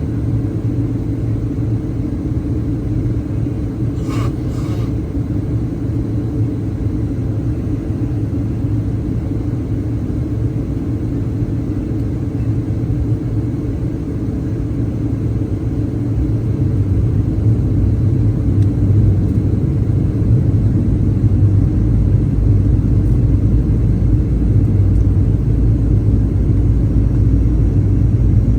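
Cabin noise of a Boeing 737-900ER airliner in flight: a steady low rumble of engines and airflow that grows louder about two thirds of the way in. Two faint clicks come about four seconds in.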